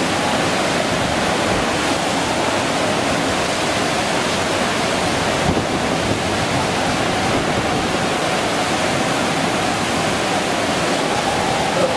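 Rough, storm-driven sea surf with wind, a steady rushing noise, the sea whipped up by Cyclone Yaas.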